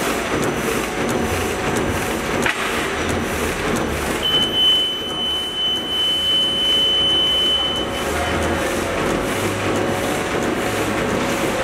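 Bag-making machine running at speed, its heat-sealing bars and cross-cutter working in a steady, regular mechanical clatter. A steady high tone sounds from about four to eight seconds in, and there is a single sharp click about two and a half seconds in.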